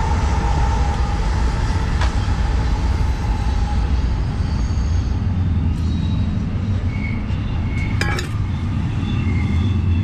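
A steady, loud low rumble with a noisy hiss above it, and a sharp click about eight seconds in.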